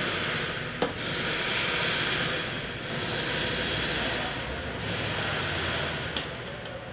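Repeated rubbing hiss of a cotton-gloved hand working the fuel pump module into the fuel tank opening, in four long strokes with short gaps. There is a sharp click a little under a second in and a faint one near the end.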